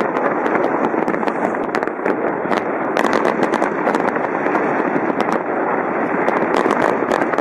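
Fireworks display: a continuous barrage of bangs and crackling, with many sharp cracks coming in quick succession.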